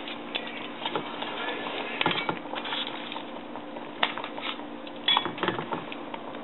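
Irregular clinks, knocks and rustles of husk-wrapped tamales and a plastic colander being handled in an aluminium pot, with a faint steady hum underneath.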